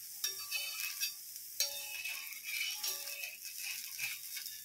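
Bread slice topped with egg sizzling in oil on a tawa, with a few sharp clicks and scrapes as a metal spatula is worked under the slice to flip it.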